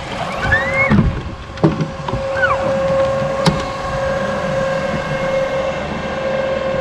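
48-volt Elco electric outboard running under way with a steady whine over hull and water noise, a couple of short squeaks in the first few seconds and a single sharp click a little past the middle.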